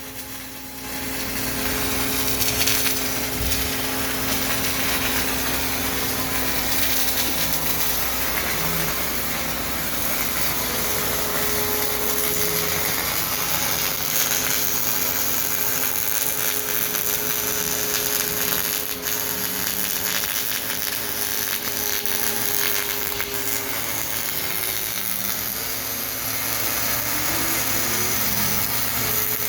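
Fronius CMT MIG welder arc on aluminium, a steady crackling buzz starting about a second in, as weld beads are laid layer on layer in additive build-up. Steady machine hum tones run under it.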